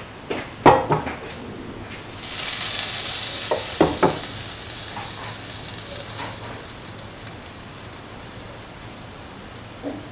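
Cooking oil heating in a nonstick pan with a soft sizzling hiss that rises about two seconds in and slowly fades. A few clunks of the pan come in the first second and a half and again around four seconds in.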